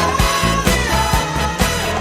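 Dance music from a DJ mix of 80s to 2000s hits played on vinyl, with a steady beat of about two beats a second.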